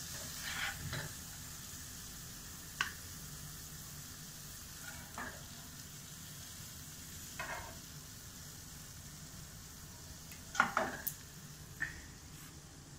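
Nylon spatula scooping cooked okra out of a non-stick pan into a bowl, with scattered short scrapes and taps against the pan and bowl over a faint steady hiss. The loudest taps come in a cluster near the end.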